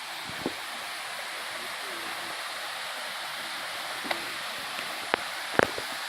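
Waterfall rushing steadily. A few short sharp clicks sound over it, the loudest a double click near the end.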